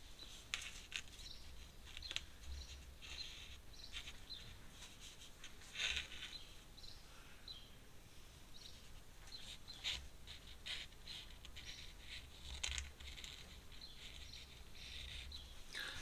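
Faint, intermittent scratching of an ink brush on paper, with small clicks and taps as it is dipped into a handheld ink pot.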